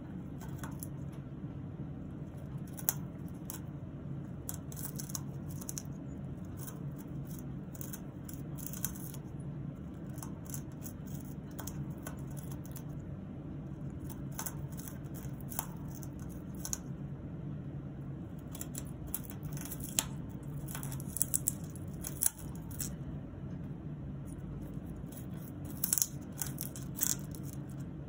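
Congo African grey parrot gnawing a wooden perch with her beak: irregular bursts of crisp crunching and snapping as wood fibres splinter, with pauses between bursts. A steady low hum runs beneath.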